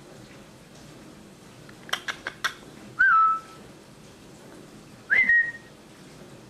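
Parrot making a quick run of four clicks, then two short pure whistles, each bending briefly before holding its note, the second higher than the first.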